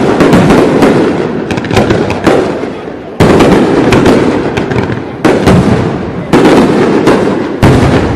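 Fireworks display: aerial shells bursting loudly one after another with dense crackling. Sharp new bangs come about three seconds in and again at about five, six and seven and a half seconds, each trailing off into crackle.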